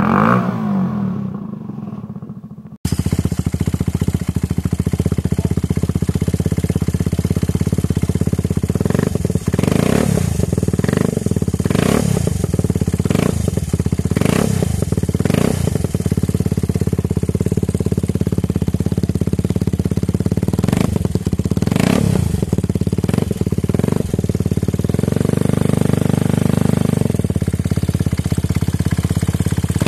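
Nexus 125 scooter's single-cylinder engine heard through aftermarket exhaust silencers. The tail of a rev dies away, then after a cut about three seconds in, another silencer idles steadily. That engine is blipped quickly several times in the middle, twice more later, and revved a little longer near the end.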